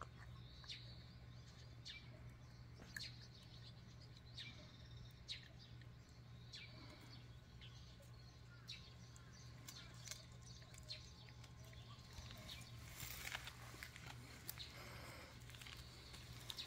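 Faint scuffling of two puppies' paws and claws on concrete as they wrestle, with scattered short high chirps in the background. The scuffling gets busier near the end.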